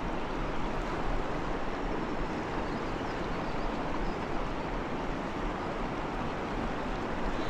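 Steady rush of a fast river flowing over rocks, with wind on the microphone.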